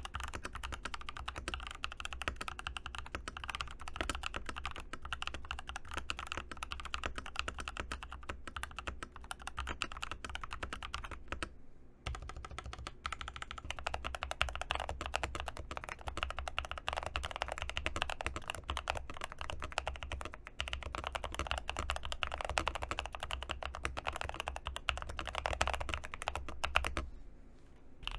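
Epomaker TH80 SE mechanical keyboard being typed on quickly, a dense run of keystrokes. The typing breaks off briefly about halfway through and falls away near the end.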